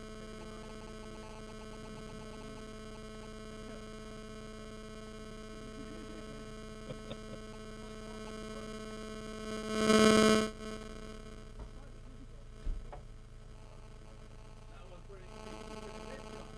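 Steady electrical hum, one low tone with its overtones, with a short loud rush of noise about ten seconds in and a faint knock a little later.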